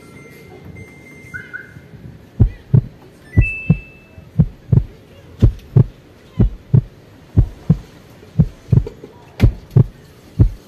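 Samsung washing machine starting a rinse cycle: a short control-panel beep, then regular low thumps in pairs, about one pair a second.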